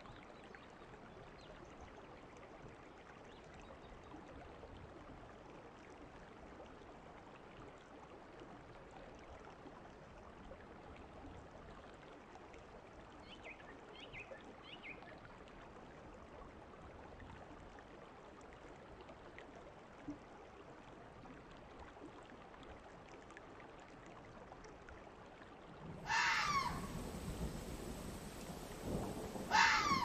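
Red fox screaming as a sound effect: two harsh shrieks near the end, each falling sharply in pitch, over a faint steady outdoor hiss.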